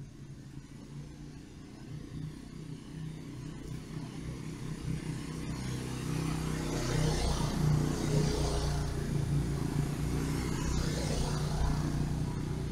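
A motor vehicle engine running with a steady low hum, growing louder over the first half as it draws closer. A rushing hiss swells over it around the middle and again near the end.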